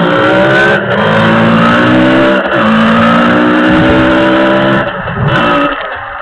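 Yamaha DT125's single-cylinder two-stroke engine pulling under acceleration, its pitch climbing. It drops at a gear change about two and a half seconds in, then eases off near the end.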